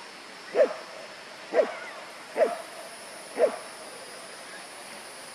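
A dog yelping: four short cries about a second apart, each falling quickly in pitch.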